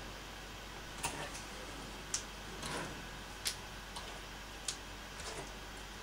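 Small plastic hair clips clicking as they are picked up and fastened into hair, one sharp click every second or so, with a soft rustle of hands in the hair between them.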